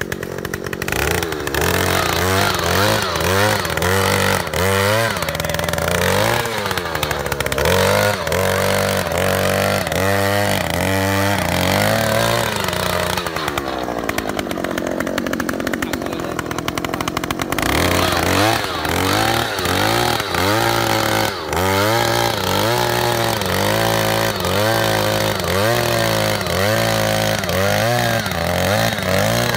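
Oshima 2PS earth auger's 54 cc two-stroke engine running under load while drilling into sandy soil, its pitch rising and falling about once a second. For a few seconds in the middle it runs lower and more evenly.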